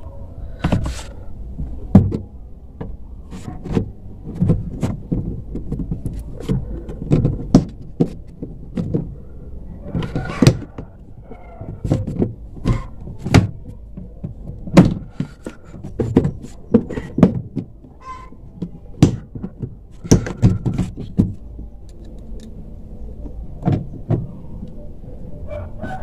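Irregular knocks and clacks, some sharp and loud, as the plastic back cover panel of a twin-tub washing machine is handled and pressed into place.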